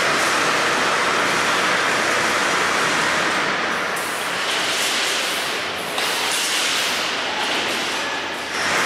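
Steady rushing noise of an automatic multi-head rebar bending machine running, dipping slightly and then jumping back up about six seconds in.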